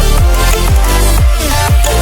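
Loud electronic dance music with a heavy bass beat: deep bass hits that drop in pitch, about two a second, under sustained synth tones.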